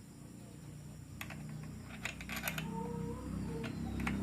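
Scattered light clicks and taps of small parts being handled, over a low steady hum.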